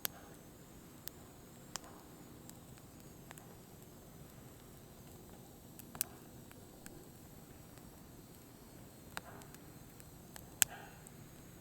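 Firewood burning: irregular sharp crackles and pops over a faint steady hiss, with the loudest pops about six seconds in and near the end.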